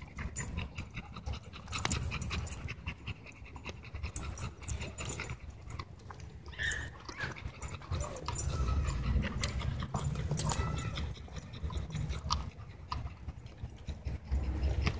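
A dog panting close to the microphone, quick breaths with scattered clicks and knocks throughout.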